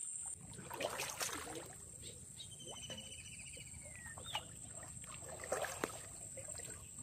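Shallow water splashing and lapping as a person wades and works with his hands in the water, with a sharper cluster of splashes about a second in.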